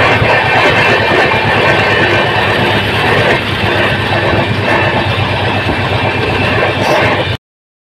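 Steel wheels of a moving train rolling on the rail at high speed, heard close beside the wheel: a loud, steady rolling rumble and rail noise. It cuts off abruptly near the end.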